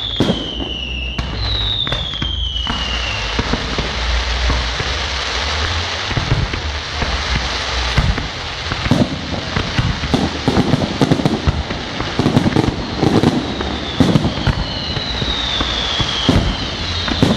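Fireworks going off: sharp bangs of bursting shells, with falling whistles just after the start and again near the end. In the middle there is a long, dense spell of crackling pops.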